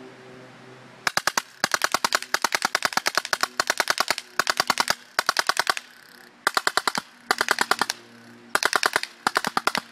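Baikal Drozd Blackbird CO2-powered BB machine gun, fed by a 9 oz CO2 paintball tank, firing on full auto in several rapid bursts with short pauses between them, starting about a second in.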